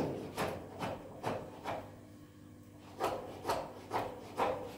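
Short scraping strokes at a steady pace of about two a second, broken by a pause of about a second midway.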